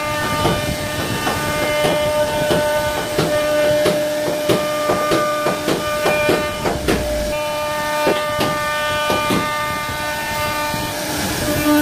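A 1325 CNC router's spindle runs with a steady whine at one pitch while its bit carves profiled panel grooves into a wooden door. Many sharp irregular ticks of the cutter chipping through the wood are thickest around the middle.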